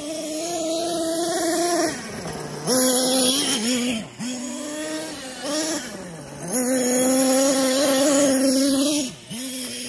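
Two-stroke nitro glow engine of a Hot Bodies Lightning GT 1/8-scale RC monster truck running hard with a high, steady buzz. It drops in pitch a few times as the throttle is let off, then climbs back up.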